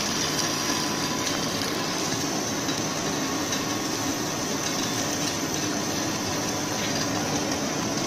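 Twin-screw corn puffing extruder line running: a steady mechanical drone with a faint high steady whine.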